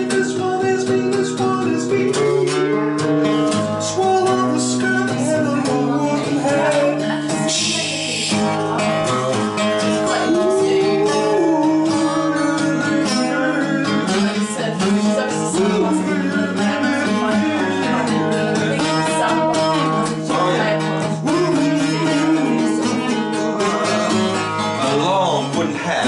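Acoustic guitar played live, an instrumental passage of a song with sustained chords and picked notes, with a short hiss of noise about eight seconds in.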